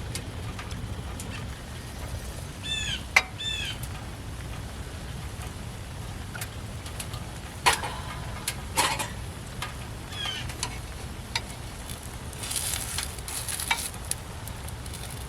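Food sizzling and frying in a pan, with scattered clicks and knocks of utensils. A bird chirps twice about three seconds in and once more about ten seconds in.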